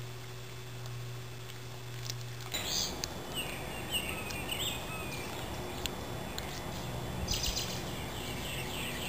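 A steady low hum that cuts off about two and a half seconds in, giving way to outdoor background noise with short, high chirps of birds in two clusters.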